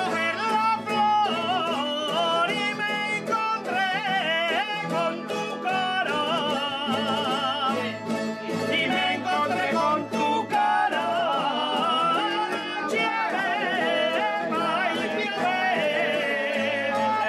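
A man singing an Aragonese jota in a full, ornamented voice with wide vibrato, accompanied by a rondalla of plucked strings with a guitar among them. The sung line breaks off briefly about halfway through and then resumes.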